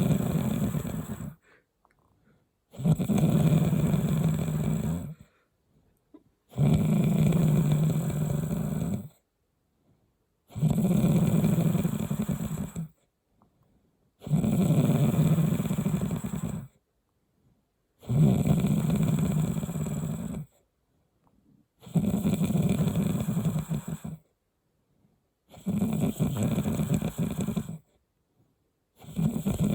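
A person snoring heavily, like a pig: long, low snores of about two and a half seconds each, coming regularly about every four seconds with silence between them.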